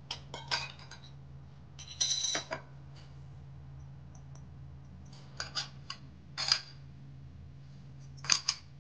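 Brass parts of a hand-press sev maker clinking and tapping as its cylinder and perforated disc are handled and fitted: scattered sharp metallic clicks in small clusters, about two, six and eight seconds in.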